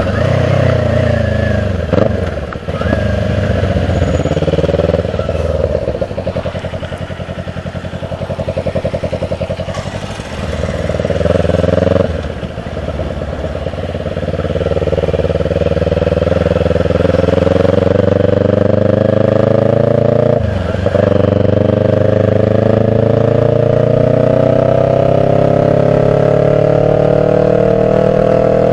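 Kawasaki Ninja 400's parallel-twin engine running under load through the gears. The revs climb and then drop sharply at gear changes, three times, before a long, slow, steady climb in revs.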